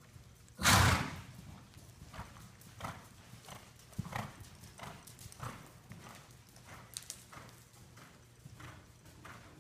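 Horse's hoofbeats in soft arena sand, a run of dull knocks about two a second. A loud, short rushing burst stands out about half a second in.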